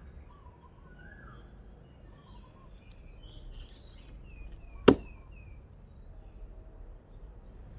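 A Hults Bruk hatchet bites into a wooden chopping block with a single sharp chop about five seconds in. Birds chirp faintly in the background.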